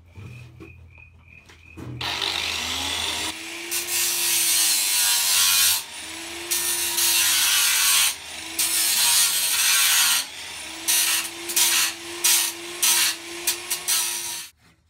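Corded angle grinder with a thick cutting disc grinding into a steel plate. The disc spins freely for about two seconds, then bites in long, loud grinding passes. Between them it is lifted off and the motor's whine comes back. Near the end come short, light touches, and it stops just before the end.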